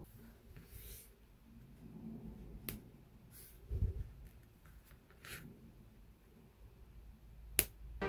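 Faint handling noise of small laser-cut wooden model pieces: a few light clicks and taps, short scrapes, and a soft thump, with a sharper click near the end.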